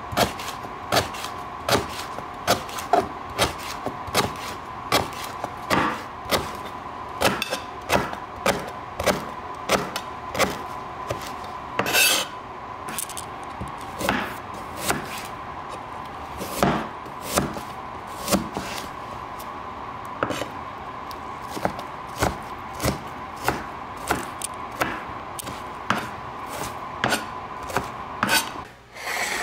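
A kitchen tool striking food on wood in a steady rhythm, about two strokes a second, with rubbing and scraping between the strokes and a faint steady tone underneath. The strokes stop about a second before the end.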